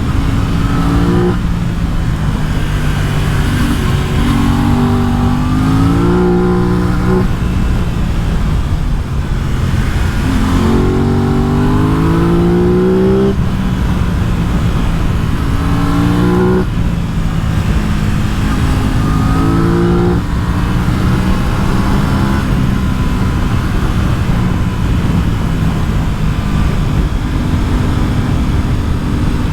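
Aprilia RS 660's parallel-twin engine under hard acceleration, its pitch rising through the revs and dropping sharply at each upshift, about five times, then holding a steadier pitch near the end.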